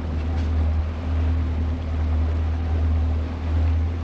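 Boat's outboard motor idling: a steady low rumble with a faint hum above it.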